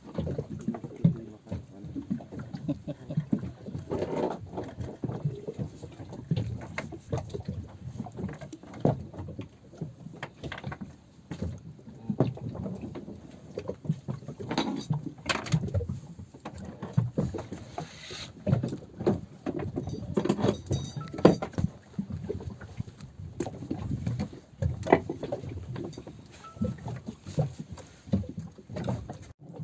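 Water lapping and slapping against the hull of a small fishing boat, with irregular knocks and bumps.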